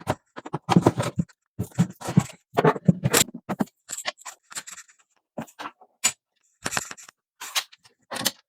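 Irregular scraping and light knocking of electrical cable and a metal screw-clamp connector being worked through a knockout in a steel breaker panel.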